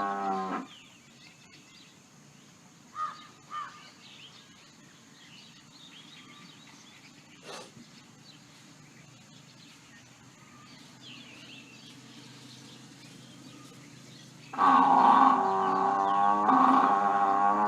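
Buffalo bellowing: a long, low bellow ends just under a second in, then quiet background with a few faint small sounds, then another loud bellow starts about fifteen seconds in and lasts about three seconds.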